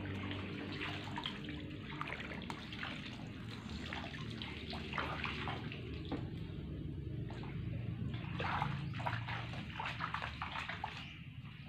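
Shallow pond water splashing and dripping as a plastic basket scoops azolla off the surface and bare feet wade through it, with many small splashes and drips.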